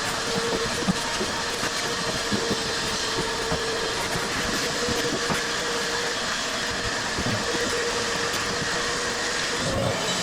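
Samsung dryer running with a steady mechanical rumble, a constant hum and a rapid irregular clatter of clicks and rattles. The drum bearings and bushing are worn out.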